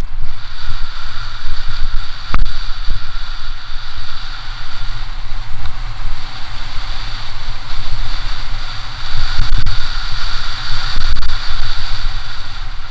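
Wind buffeting the helmet-camera microphone on a fast mountain-bike descent of a 2015 Intense Tracer 275A, over tyres on loose dirt and a steady high-pitched buzz from the rear hub freewheeling while coasting, which grows and fades. A sharp knock from the bike sounds once, about two seconds in.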